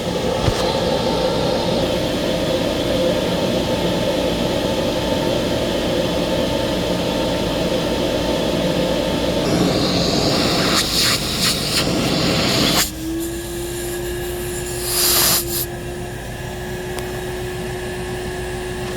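Vintage Hoover Portable 2110 vacuum cleaner running, air rushing loudly through the hose and wand. About 13 seconds in the rush of air drops abruptly, leaving a quieter, steady motor hum with one clear tone, broken briefly by a short hiss a couple of seconds later.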